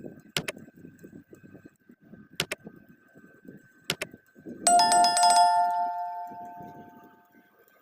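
A few sharp clicks, then one bell-like metallic ding, with several clear tones, that rings out and fades over about three seconds.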